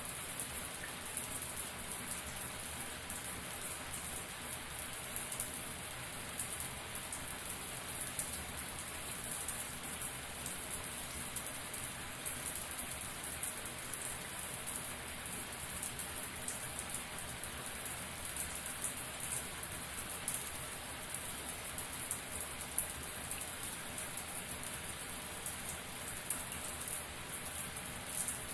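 Shower spray running steadily, water drops spattering down in a continuous hiss.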